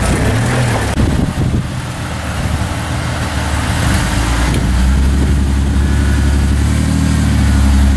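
Lifted Ford Ranger pickup's engine running at a steady idle on the rocks, with a deeper, stronger drone from about halfway through.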